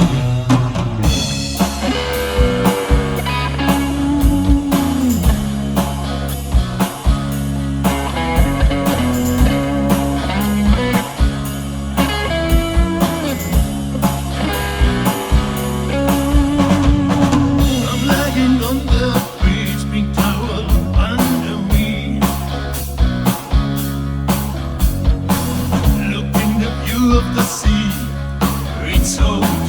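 Rock music with bass, electric guitar and a steady drum-kit beat, the band's instrumental section of the song.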